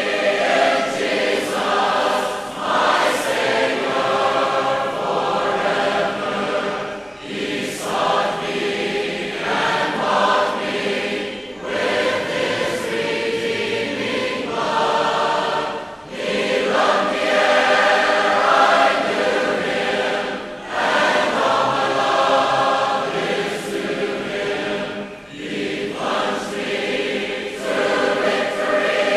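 Congregation singing the invitation hymn together, in sung lines with short breaths between them every four or five seconds.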